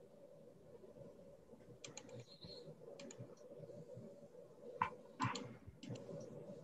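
Faint typing on a computer keyboard and clicking, with a few sharper clicks about five seconds in, over a steady low hum.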